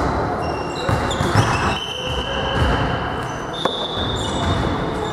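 Sneakers squeaking on a gym floor during an indoor volleyball game, in many short high squeals at differing pitches. There are low thuds, and a single sharp thump of a hit or bounced ball comes about three and a half seconds in. Players' voices are heard, and everything echoes in the hall.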